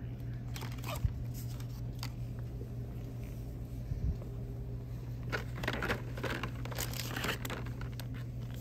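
Plastic product packaging crinkling and rustling in the hand, sparse at first and dense in the second half, over a steady low hum.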